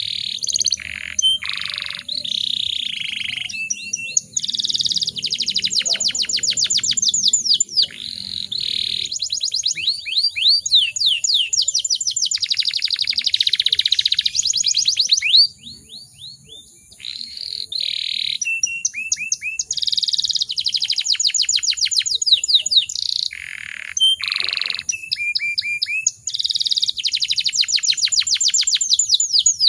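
Domestic canary singing long, fast rolling trills of rapidly repeated high sweeping notes, phrase after phrase, with a short pause about halfway through.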